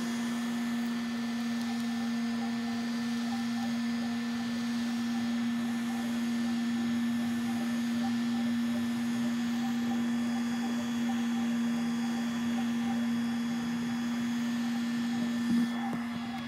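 FDM 3D printer running mid-print: a steady hum, with a fainter fluttering motor sound over it.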